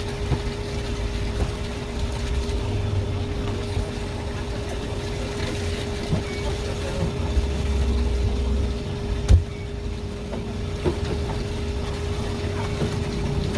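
A steady machine hum with a low rumble, broken by scattered light clicks and one sharp knock about nine seconds in.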